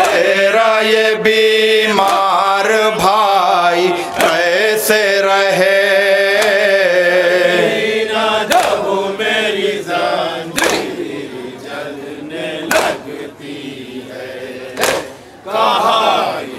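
Group of men chanting a noha lament in unison, voices in long held sung lines. About halfway through the chanting thins and loud sharp matam strokes, hands striking chests together, land about every two seconds.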